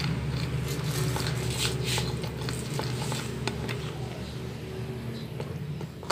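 A metal spoon stirring wet flour batter in a glass bowl, with irregular scrapes and clinks against the bowl as water is poured in to thin it, over a steady low hum.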